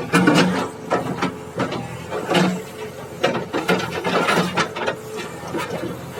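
JCB digging machine working: irregular clanks, knocks and scraping of metal parts, several a second apart.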